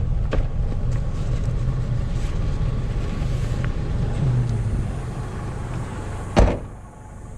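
Steady car and traffic rumble, then a car door shuts with one loud thump about six seconds in, after which the background turns quieter and muffled.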